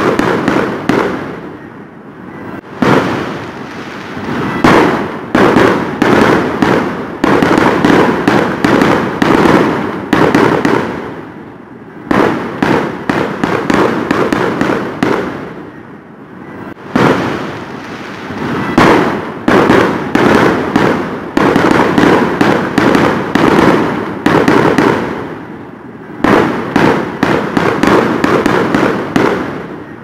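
Fireworks going off in rapid volleys overhead: loud, dense crackling and sharp bangs from bursting shells. The barrage eases off briefly a few times, then comes back just as thick.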